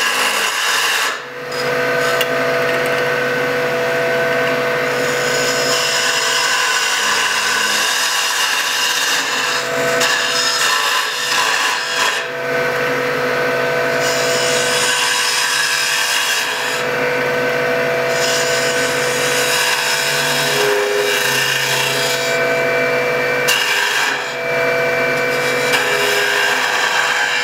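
Wood lathe running while a lathe duplicator's cutter shaves a spinning French rolling pin: a steady motor hum under a scraping cutting noise. The cutting noise breaks off briefly a few times as the cutter is moved along the template.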